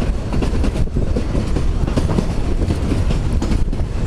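Cars of a narrow-gauge railroad rolling along the track, heard from an open gondola car: a steady low rumble with irregular wheel clatter and knocks.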